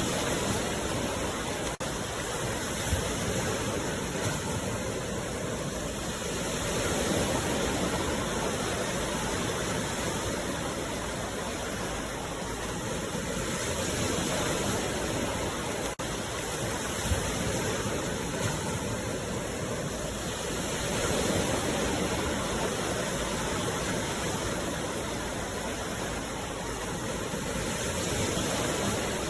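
Sea waves washing ashore in a steady rush, swelling and fading about every seven seconds.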